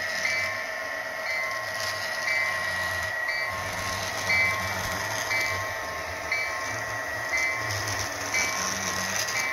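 Model Norfolk Southern diesel locomotives running slowly on the layout's track, with a steady electric motor whine. A short bell-like ring repeats a little more than once a second.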